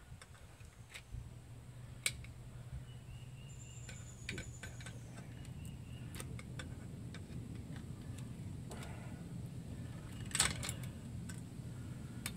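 Scattered light metal clicks and scrapes of a screwdriver prying at the lock nut and locking washer on a truck's rear axle hub, with the sharpest click about ten seconds in, over a steady low hum.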